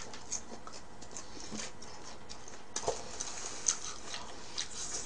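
Quiet eating sounds: a person chewing fried chicken, with faint scattered clicks and light rustles of chopsticks working over a paper-lined chicken box. A few slightly louder clicks come about three seconds in.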